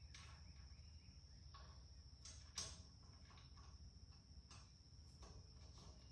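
Near silence, with a faint steady high-pitched tone and a few faint clicks and taps, the sharpest about two and a half seconds in.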